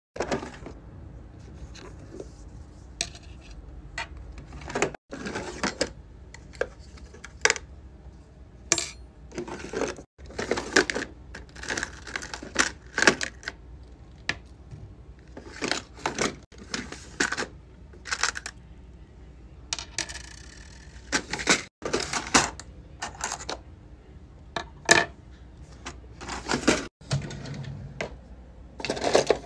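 Small plastic keychain cases, a clear plastic container and metal key rings being handled and set down while packing keychain orders: a string of quick clicks, taps and clatters. The sound cuts out briefly about every five seconds.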